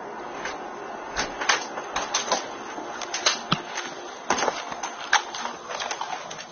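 Irregular clicks and knocks of a front door's handle and latch being worked as the door is pushed open.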